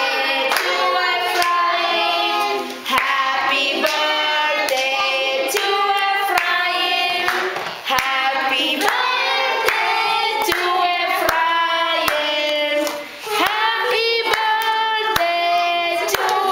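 A group of young children and women singing a birthday song together, clapping along in time with the beat.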